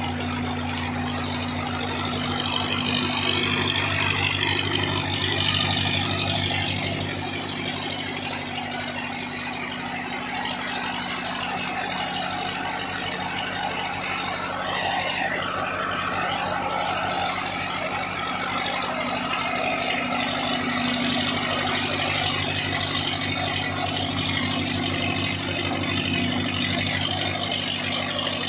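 Old Belarus tractor diesel engine running steadily at a constant speed under load, driving a belt-driven flour mill (chakki) that grinds alongside it.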